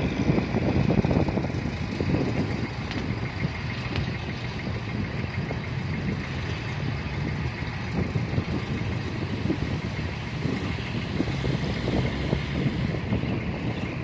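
Heavy diesel engine running steadily while a dump truck's hydraulic hoist raises its bed to tip a load of soil. The rumble is a little louder in the first couple of seconds.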